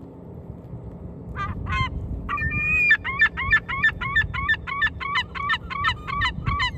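A large bird calling loudly: two short calls, then a longer drawn-out call, then a fast run of about four calls a second.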